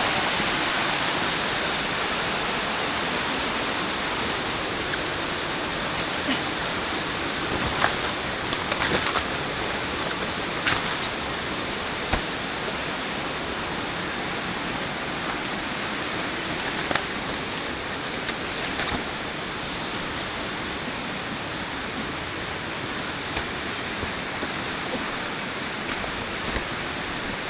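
Steady rushing water from the rain-swollen surroundings, easing off slightly over time, with a few faint clicks and knocks scattered through it.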